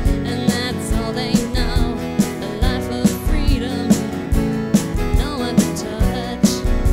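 Recorded acoustic country-folk band music: plucked and strummed acoustic guitar over a bass line and a steady beat, with a wavering melody with vibrato on top.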